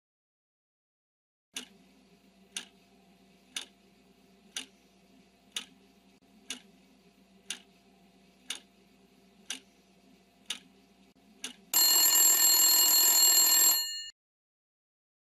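Countdown timer sound effect: a clock ticking once a second for about ten seconds, the last two ticks coming quicker, then a loud alarm bell ringing for about two seconds as the count reaches zero, cutting off sharply.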